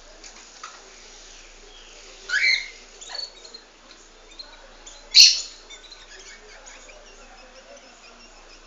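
Pet birds chirping: faint scattered chirps throughout, with a loud rising chirp about two seconds in, a shorter call about a second later, and a sharp loud call a little past five seconds.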